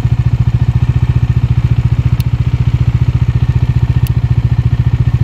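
Bajaj Dominar 400's single-cylinder engine idling, a steady, even beat of about fifteen pulses a second. Two small clicks come about two and four seconds in.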